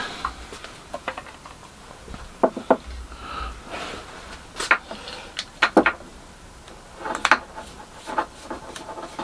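Irregular sharp clicks and light knocks of a clear perspex router base plate and its screws being handled and worked with a hand screwdriver.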